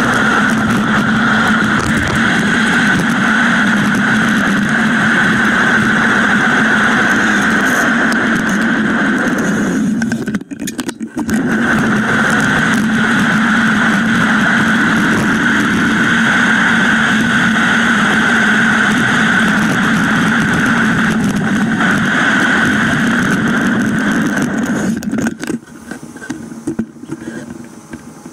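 Steady drone and road noise from a moving bicycle, with wind on the bike-mounted camera's microphone. It breaks off briefly about ten seconds in and dies down near the end as the bike slows to a stop.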